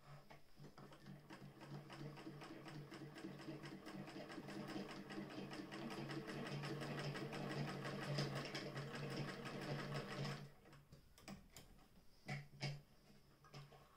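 Singer 99K hand-crank sewing machine stitching through a strip of leather, its mechanism clicking in a steady, rapid rhythm. The stitching stops abruptly about ten seconds in, followed by a few separate clicks and knocks.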